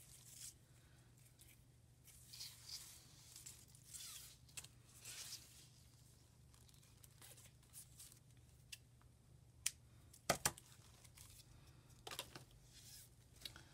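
Cream ribbon being pulled off its spool and handled on a tabletop: faint rustling and sliding, with a few sharp clicks about ten seconds in.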